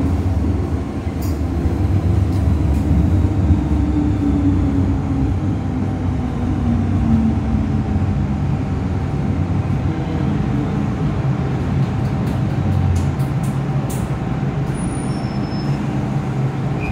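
Cabin interior of an MTR M-train slowing into a station: a steady low running rumble, with a motor whine that falls in pitch as the train slows. A few brief high squeals come near the end.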